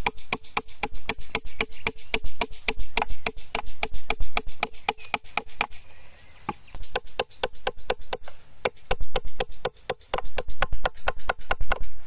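Steel hammer driving nails into a wooden board: rapid blows, about four to five a second, with a faint ring from the nail in the first half and short breaks between nails.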